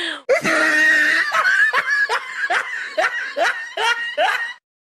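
Laughter sound effect: a loud laugh in quick, even bursts, about three to four a second, that cuts off suddenly near the end.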